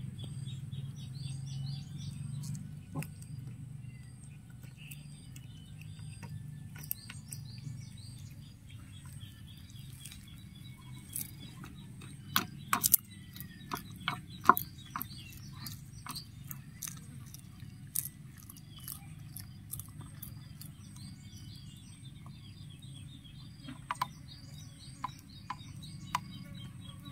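Cats chewing fish, with scattered sharp crunches and clicks, bunched around the middle. Small birds chirp throughout over a steady low hum.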